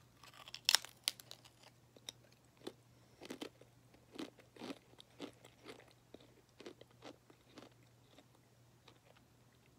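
A Lay's Stax potato crisp being bitten and chewed close to the microphone. A sharp crunch comes about a second in, then a run of irregular crunches as it is chewed, thinning out toward the end.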